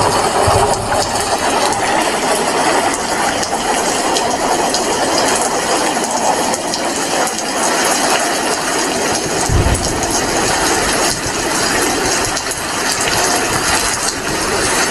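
Heavy rain falling steadily as a dense, crackling wash of noise, with a brief low thump about ten seconds in.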